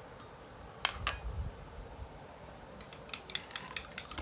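Light clicks and taps of kitchen utensils being handled: two taps about a second in, then a quick run of small clicks near the end.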